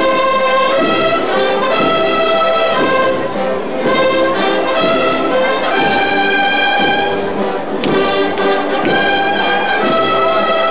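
Brass band playing a slow Holy Week processional march, with long held chords.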